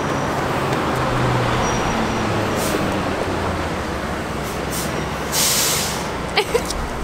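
Street traffic noise with a vehicle engine running close by, steady throughout. About five and a half seconds in, a loud hiss lasts about half a second, followed by a couple of short clicks.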